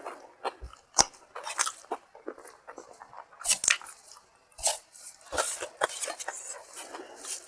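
Close-up eating sounds: chewing a mouthful of rice and fish curry, with wet smacking and several sharp crunches and clicks.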